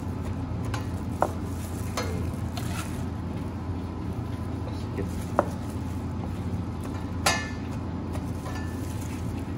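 Chef's knife slicing grilled chicken on a plastic cutting board: scattered sharp knocks as the blade meets the board, with a louder clattering knock with a short ring about seven seconds in, over a steady low hum.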